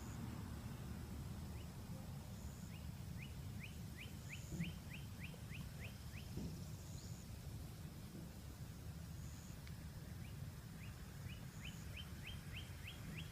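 An animal calling lakeside in quick series of short, downward-sweeping chirps, about three a second. One run of around a dozen falls in the first half and another begins near the end. The uploader takes the calls for an alligator's strange noise.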